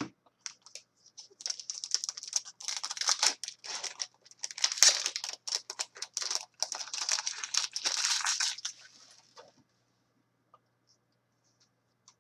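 Hockey card packs being handled and opened: foil pack wrappers crinkling and tearing, with cards rustling against each other. A dense crackling run lasts about eight seconds and stops about nine and a half seconds in.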